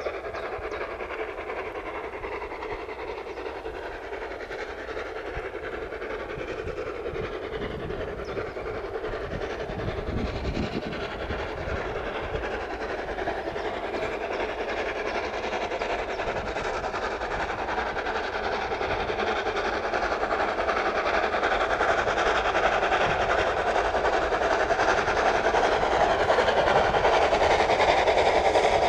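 Narrow-gauge steam train approaching, its running sound growing steadily louder as it nears.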